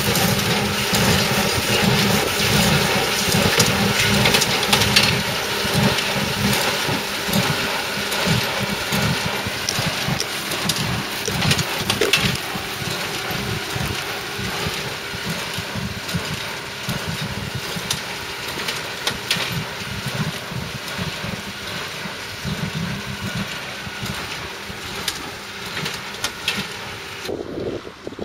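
John Deere 2850 tractor's diesel engine running steadily as it pulls a John Deere 342A small square baler at work, with the baler's mechanism knocking and clattering. The sound fades gradually as the outfit moves away.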